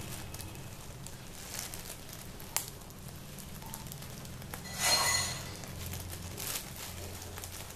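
Thin plastic bag crinkling and rustling as two parakeets, an Alexandrine and an Indian ringneck, poke their beaks into it and pick at the food inside. There is a sharp click about two and a half seconds in and a louder, brief rustle about five seconds in.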